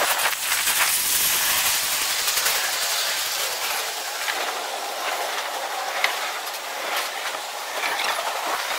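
Freight cars, tank cars and then autoracks, rolling past on the rails: a steady wheel-on-rail noise, with a few sharp clicks in the second half.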